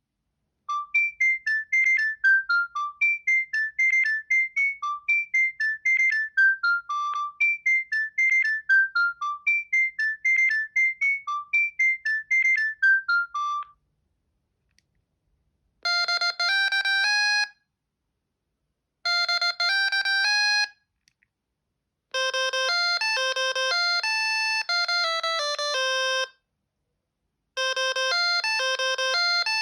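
Alcatel OT 715 mobile phone playing its built-in ringtones. The first is a run of short electronic notes falling in a repeating pattern for about thirteen seconds. After a brief silence a different, lower melody plays in phrases of one to four seconds with short pauses between them.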